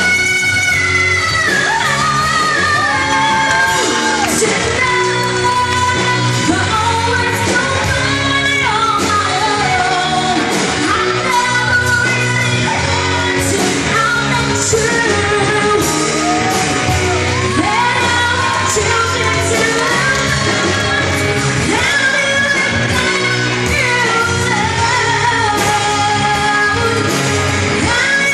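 A woman singing a pop-rock ballad live into a microphone, backed by an amplified band with drums and bass guitar. Her voice carries a melody with long held notes, some of them belted.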